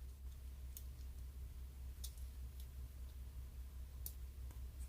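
A few faint, sharp clicks of small plastic connectors and fingers as tiny motor plugs are worked into their sockets on a micro drone's board, over a steady low hum.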